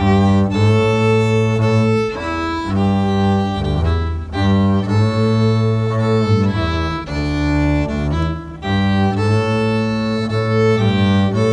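Fiddle and bowed upright bass playing a slow instrumental passage: long, held low notes under the fiddle's melody, changing every second or two.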